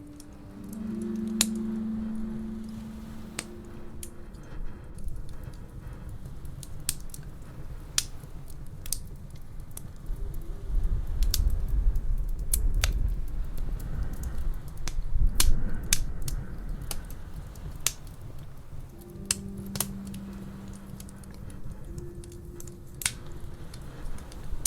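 Wood fire crackling in a fireplace, with irregular sharp pops and a low rumble that swells in the middle. Soft held musical tones sound at the start and again near the end.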